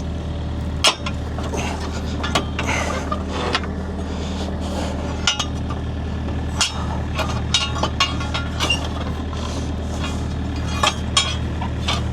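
Sharp, irregular metal clinks of a steel crowbar prying at a Kobelco excavator's track idler to push it back in. Under them the excavator's diesel engine runs at a steady idle.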